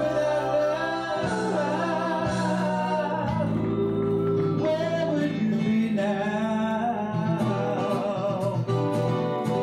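A woman singing into a microphone with long held notes, over instrumental accompaniment.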